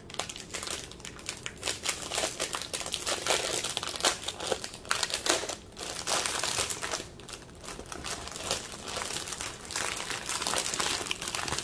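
Clear plastic bag crinkling as hands turn and squeeze a bundle of small plastic bead packets, in irregular crackles.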